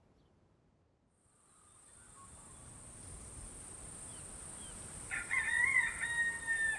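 A rooster crowing once near the end, a single call of under two seconds, over a steady high-pitched insect drone that fades in after about a second and a half of silence.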